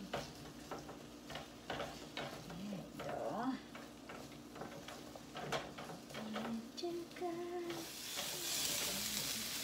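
A spatula stirring and scraping diced potatoes in a frying pan, a run of short clicks and scrapes. Near the end a steady sizzle of the potatoes frying in oil comes up loudly.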